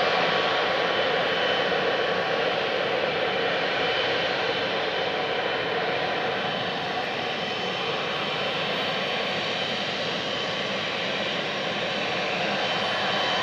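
Boeing 777-300ER's twin GE90-115B turbofans running at taxi power as the jet taxis: a steady jet rush with a thin high whine, easing slightly in the middle and swelling again near the end.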